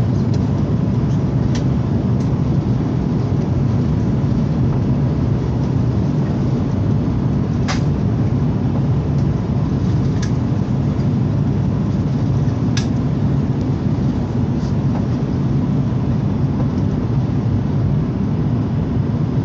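Steady cabin noise inside an Airbus A330 descending on approach: a low rumble from the engines and airflow. A few brief clicks sound over it.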